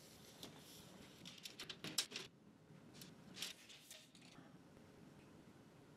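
Faint clicks and rustles of a tape measure being pulled out and handled, in a short cluster a little over a second in and again about three and a half seconds in, otherwise near silence.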